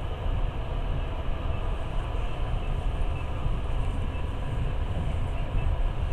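Passenger train running at speed: a steady low rumble of the carriage and its wheels on the track.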